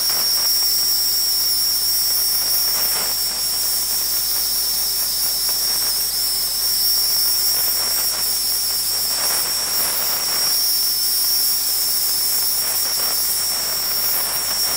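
Dry-cleaner's spotting table running: a steady hiss with a constant high whistle from its steam gun and vacuum as the gun is worked over a stain ring on the fabric. A few softer swells of hiss come and go.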